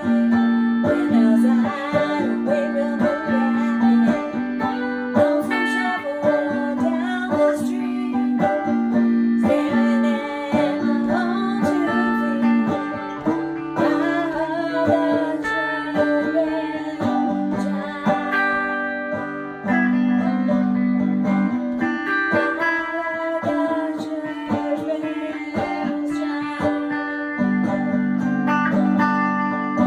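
Stratocaster electric guitar and electrified banjo playing an instrumental duet: held low chord tones that change every second or two, under a melody line with bent, wavering notes.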